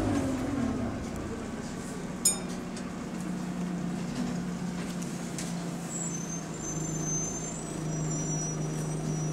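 Diesel engine of an Alexander Dennis Enviro200 (E20D) bus with an Allison automatic gearbox, heard from inside the cabin. It winds down as the bus comes to a stop, then idles at a steady, high rpm. A short sharp ringing sound comes about two seconds in.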